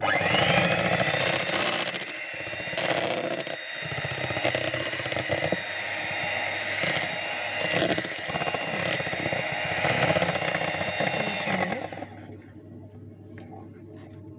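Electric hand mixer running as it beats cake batter. It starts with a rising whine, keeps a steady motor sound whose loudness swells and dips as the beaters work, and switches off about twelve seconds in.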